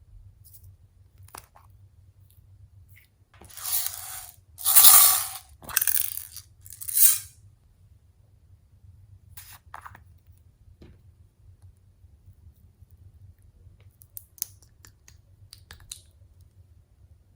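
Glossy slime mixed with floam beads being squished and pressed by hand: a few seconds in, four loud squishes come in quick succession, with small scattered clicks and pops before and after.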